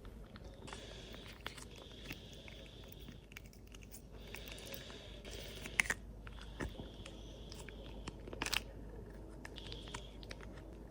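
A cat licking and smacking at a Churu lickable purée treat: soft, wet mouth clicks and lapping, with a few louder ticks about six and eight and a half seconds in.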